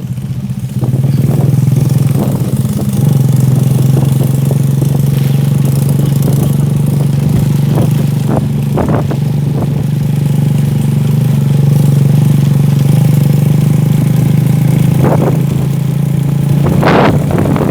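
Habal-habal motorcycle taxi engine running steadily, louder about a second in and again a couple of seconds later.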